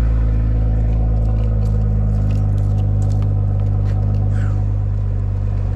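BMW M340i's stock-exhaust 3.0-litre turbocharged inline-six running steadily, a deep even rumble.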